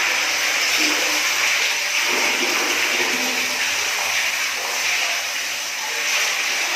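Water spraying steadily from a handheld shower spray onto the stone floor of a granite tub, a constant hiss of water.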